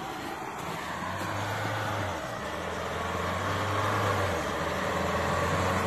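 Pickup truck's engine pulling under load as the truck pushes through deep snow and comes closer, with the wide hiss of tyres churning snow. The engine note shifts about two seconds in and again about four seconds in.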